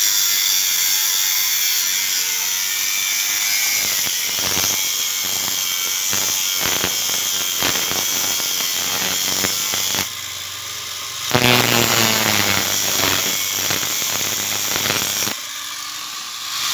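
Electric angle grinder with a cut-off disc cutting through steel rebar: a steady high whine and hiss with uneven grinding strokes as the disc bites the bar. It stops about ten seconds in, starts again with a rising whine as it spins up, and stops again shortly before the end.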